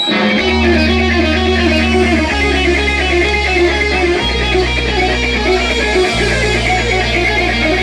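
Live rock band music: an electric guitar plays a repeated picked figure over low held bass notes that change about every two seconds, starting a moment in.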